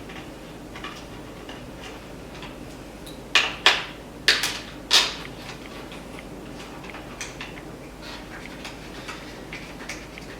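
A quick run of four or five sharp metallic clinks and clicks a little over three seconds in, from hand tools and screws being handled while a panel is unscrewed, with faint ticks before and after.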